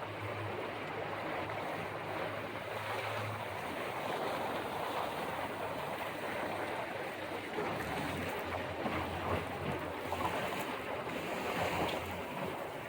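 Boat moving on open sea: water rushing and splashing with wind on the microphone. A low steady hum runs underneath, stops a few seconds in and comes back about eight seconds in.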